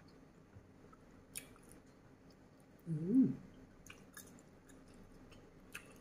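A person chewing squid and shrimp from a spicy seafood salad, close to the microphone, with wet mouth smacks and clicks now and then. About three seconds in comes a short hummed "mm".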